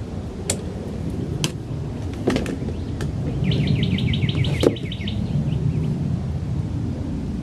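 A bird's rapid trilled call, about a dozen quick notes over a second and a half, over a steady low rumble. A few sharp knocks are scattered through it, the loudest one about two-thirds of the way in.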